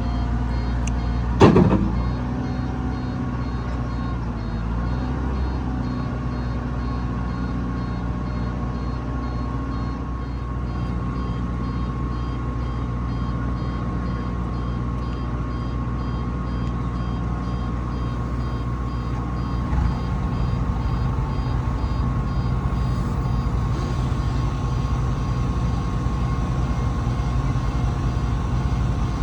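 Heavy diesel engines of earthmoving machinery, a bulldozer and a dump truck, running steadily, with a loud metallic clank about a second and a half in. A faint repeating high beep, like a reversing alarm, sounds at times.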